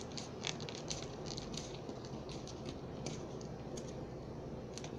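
Faint rustling and crinkling of a sheet of paper being folded and creased by hand, with scattered soft ticks as fingers press the fold flat.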